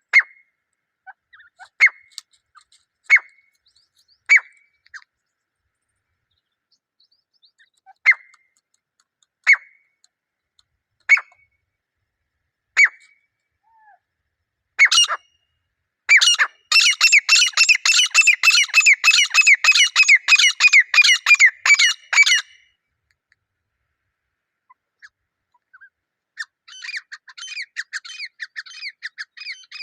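Grey francolin pair calling: sharp single call notes about every second and a half, then a loud, fast run of repeated calls lasting about six seconds in the middle, and a softer fast series starting near the end.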